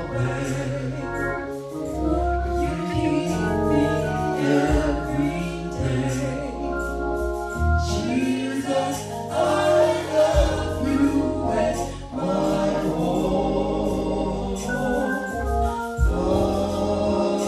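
Gospel song: a choir singing held, gliding lines over organ accompaniment with sustained low notes.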